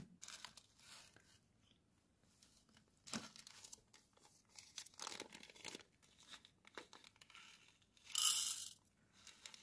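Small plastic zip-lock bag crinkling and rustling as it is handled and opened, with a louder rustle near the end as the bag of flat-back rhinestones is tipped over a plastic bead tray.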